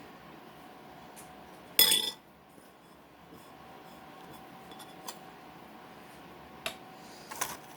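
A spoon clinking against a bowl while scooping nacho cheese: one loud clink about two seconds in, then a few lighter taps near the end.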